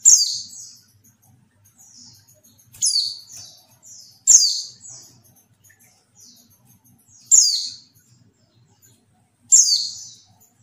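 A female pleci (white-eye) calling: five loud, short, high chirps that fall in pitch, each followed by a softer trailing note, spaced unevenly a couple of seconds apart. This is the female call used to provoke male white-eyes into singing.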